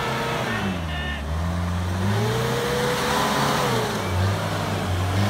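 Toyota Hilux LN106 turbo-diesel engine revving up and down under load as the truck crawls up a steep dirt bank, the pitch rising and falling several times.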